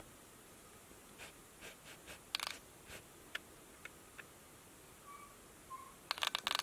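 A cat's paws and claws tapping and scratching at a laptop screen and keyboard: scattered sharp clicks, a quick cluster about two and a half seconds in, and a rapid flurry of taps near the end.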